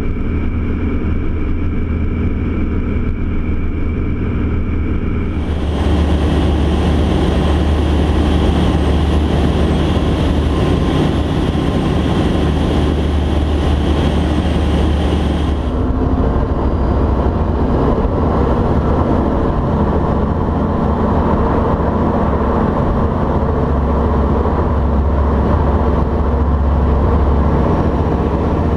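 Light-aircraft engine and propeller drone picked up by onboard cameras, in three cut-together clips. It starts as a steady drone with a thin high whine, changes after about five seconds to a Van's RV-12's Rotax engine in flight with a strong wind hiss, and about halfway through changes again to the RV-12's engine running on the runway.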